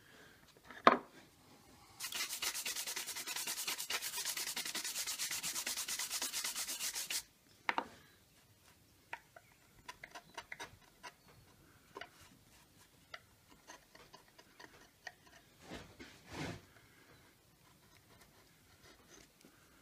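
A sharp knock about a second in, then about five seconds of brisk, even rubbing as wood chips are brushed off the carved panel. After that, faint scattered clicks of a small carving tool paring the wood.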